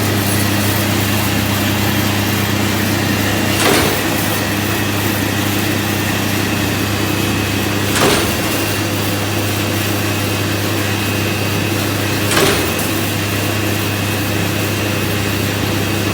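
CNC rebar and steel wire straightening and cutting machine running with a steady hum and a faint high whine as wire feeds through. A sharp clack comes about every four seconds, three in all, as the shear cuts each length of wire.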